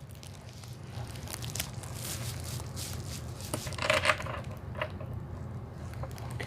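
Ring light stand parts and packaging being handled: soft rustling, rubbing and scraping, a little louder about four seconds in, over a low steady hum.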